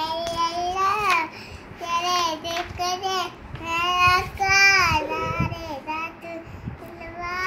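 A young girl singing unaccompanied in a high child's voice, holding notes that bend up and down, in phrases broken by short breaths.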